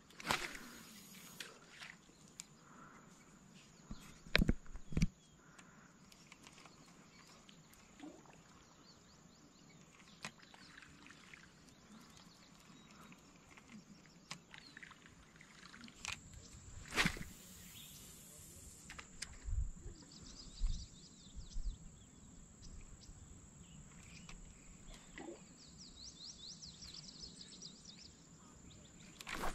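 Faint outdoor ambience with a few scattered knocks and thumps, and short runs of faint high bird chirps in the second half.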